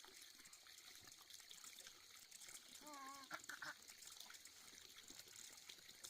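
Near silence with a faint trickle of running water. About three seconds in comes one short wavering call, followed by two quick chirps.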